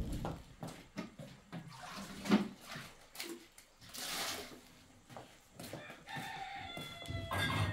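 Scattered knocks, the loudest about two and a half seconds in, and a short hiss around four seconds. In the last couple of seconds comes a drawn-out animal call, several steady tones sounding together, like a rooster crowing.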